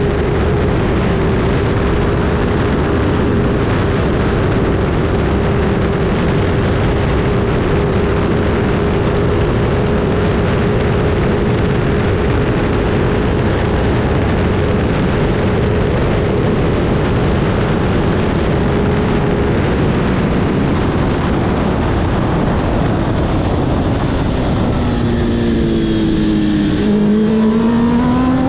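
Kawasaki ZXR750 racing motorcycle's inline-four engine held at high, nearly steady revs under heavy wind rush at speed. About three-quarters of the way through, the revs fall in a few quick steps as the bike slows, then climb steadily again as it accelerates.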